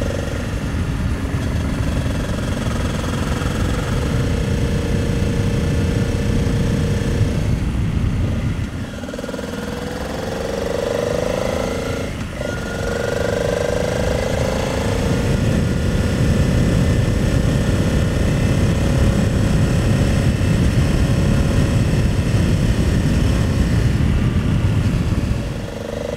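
Honda Transalp 700's V-twin engine running under way, with a heavy rush of wind on the microphone. The engine note falls away briefly twice mid-way and once near the end, rising again each time.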